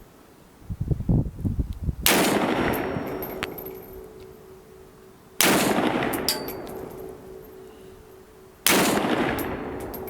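Three single rifle shots from a 7.62×39 AR-15 fired off a bench, a little over three seconds apart, each echoing away for a couple of seconds. A few low thumps come just before the first shot.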